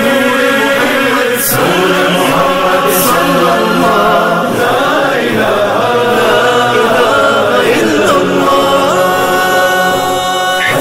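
Islamic devotional nasheed playing as background music: a chorus of voices chanting a held, wavering melody without clear words.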